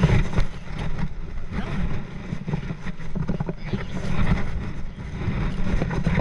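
Wind buffeting the camera's microphone, an uneven low rumble that rises and falls in gusts.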